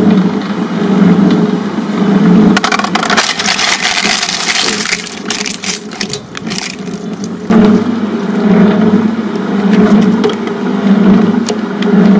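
Twin-shaft shredder running with a steady hum, its blades cracking and crunching through a hard plastic toy car from about two and a half seconds in until about seven and a half seconds, then turning over empty again.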